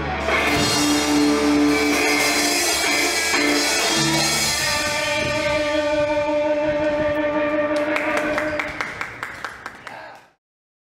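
Rock band of electric guitars and drum kit ending a song: a final held chord with a flurry of drum hits, fading out and cutting to silence about ten seconds in.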